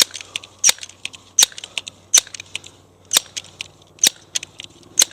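Pellet pistol being worked by hand: a series of about eight sharp mechanical clicks, roughly one per second.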